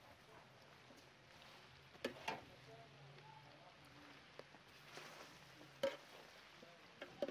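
Beef frying in a pan: a faint sizzle, with a few sharp clicks of a utensil against the pan.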